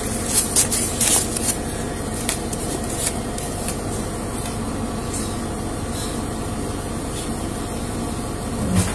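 Steady hum inside an ambulance's patient compartment, with rustling of papers and brushing against the body-worn camera, most of it in the first second or so.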